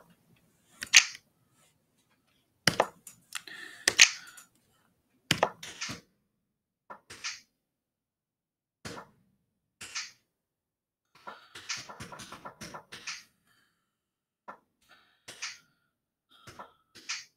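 Sparse, irregular beat percussion: short kick-like thumps, sharp snaps and hissing hi-hat-like hits, one or two a second with silence between, bunching into a busier run just past the middle.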